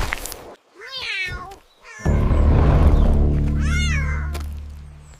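A kitten meows twice, short arching calls about a second in and again near four seconds. Low sustained background music comes in about two seconds in and slowly fades.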